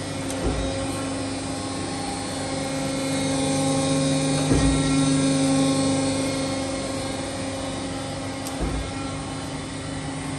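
Thompson surface grinder running, a steady electric-motor hum that swells slightly mid-way, with three short low thumps about four seconds apart.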